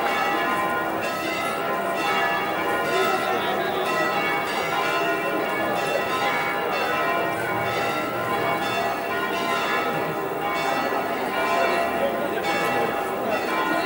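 Church bells pealing continuously, many ringing tones overlapping, marking the patron saint's statue being carried back into the church.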